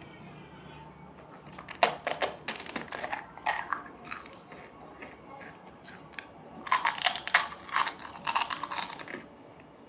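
Crisp pani puri shells crunching as they are bitten and chewed, in two bouts of sharp crunches: one about two seconds in, the other a few seconds later.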